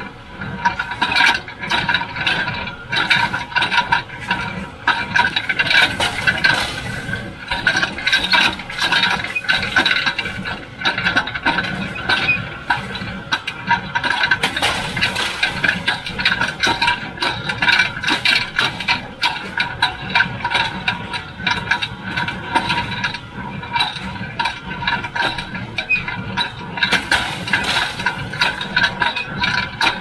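John Deere 348 square baler with its #42 pan kicker running while baling hay: continuous metallic rattling and clanking over a steady machine whine.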